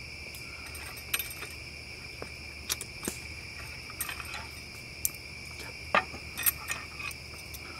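Steady high-pitched chorus of crickets chirring through the night, with scattered light clicks and clinks of chopsticks and metal cups on a camp table, the sharpest about six seconds in.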